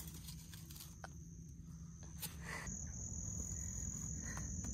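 Night insect chorus: a steady high-pitched trill that shifts slightly higher about two-thirds of the way through, with a few faint knocks.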